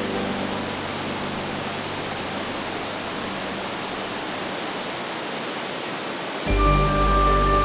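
Steady rush of flowing water with no other sound over it. Background music with sustained tones comes in about six and a half seconds in.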